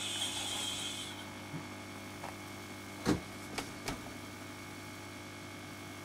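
Hot air soldering gun running with a steady low hum, blowing hot air onto a thermostat's bimetal dome to heat it to its popping point. A high hiss dies away in the first second, and there are a few light knocks about three seconds in.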